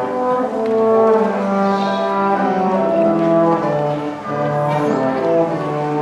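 Music on brass instruments: several held notes sounding together and moving from chord to chord.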